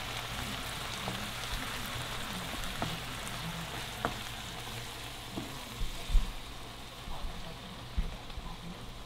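Onions, bell peppers and mushrooms frying in butter in a lidded skillet on high heat, a steady sizzle. A few sharp clicks or knocks stand out, the loudest about six seconds in and another about eight seconds in.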